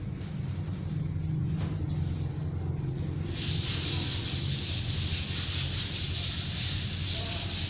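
Repair work: a steady low hum throughout, joined about three seconds in by a loud, even hissing rasp that runs on without a break.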